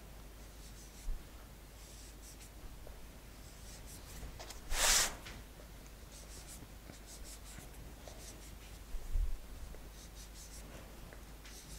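Soft rubbing and scraping of a plastic rolling pin pressed and dragged against sugarpaste icing on a cake, with a few faint knocks. One louder short rustle about five seconds in.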